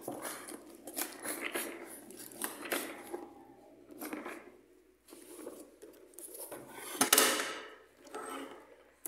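Paper forms and a cardboard box being handled: rustling, scraping and light knocks, with the loudest scrape about seven seconds in.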